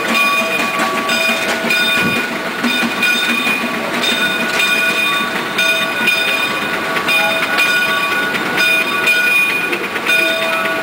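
Steam road locomotive running along: a steady mechanical clatter, with metallic ringing tones that cut in and out in short, repeated spurts.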